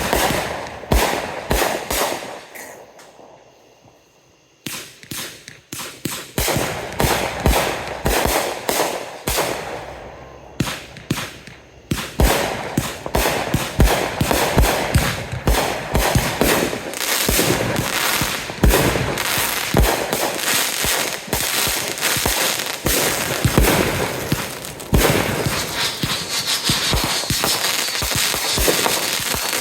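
Fireworks going off in rapid bangs and crackles. There is a short lull about three to four seconds in, then a long, dense barrage from about twelve seconds on.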